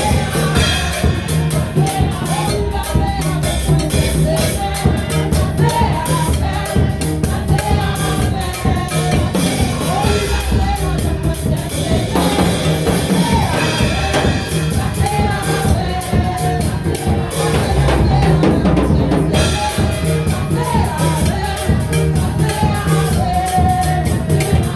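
Gospel worship music with a full drum kit keeping a steady beat under a melody that rises and falls.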